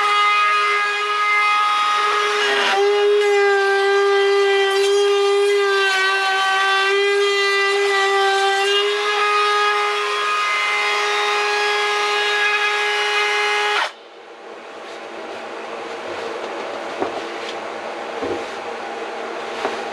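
High-speed handheld power tool cutting back wooden boards, its motor running as a loud steady whine that dips slightly in pitch under load. It cuts off abruptly about fourteen seconds in, leaving a quieter hum and a few light knocks.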